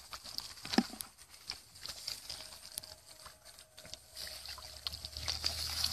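Shallow muddy water splashing and sloshing as hands grope through it for fish, with scattered small splashes and squelches and one sharper splash about a second in.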